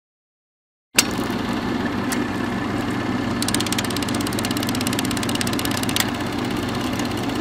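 Mechanical motor sound effect: it starts about a second in with a sharp click, then runs steadily like an idling engine. A fast ticking rattle runs through the middle, and there are a couple of single knocks.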